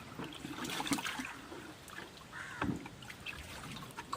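Pond water splashing and trickling as it is scooped and poured, with a crow cawing once about two and a half seconds in.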